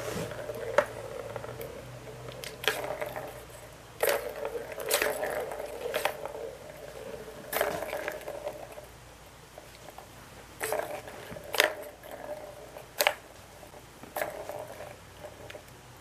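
A cat batting the balls in plastic ball-track toys: about ten sharp plastic knocks at irregular intervals, each often followed by a ball rattling and rolling around the circular track for a second or so.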